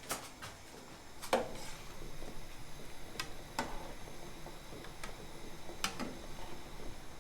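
A handful of sharp, irregularly spaced clicks and taps, some with a short ring, over a low background hiss.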